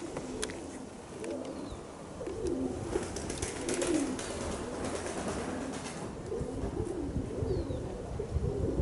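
Domestic pigeons cooing over and over, with strong wind rumbling on the microphone that grows heavier near the end.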